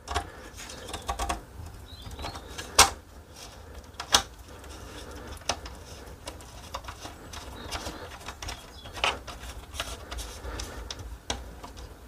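Irregular light clicks and taps of a hex key turning a small screw into the metal limit-switch bracket on a laser engraver's gantry, with hand-handling noise. A steady low rumble runs underneath.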